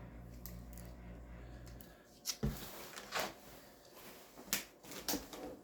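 Plastic food containers being handled: a few sharp clicks and taps, spaced about a second apart, as they are picked up and set down. A faint low hum stops about two seconds in.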